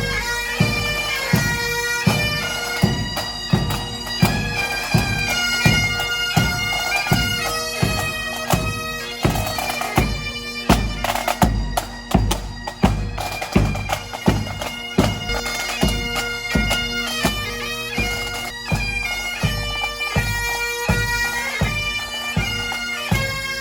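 Highland bagpipes playing a tune over their steady drones, with a drum beating time about one and a half strokes a second and rapid rolls around the middle.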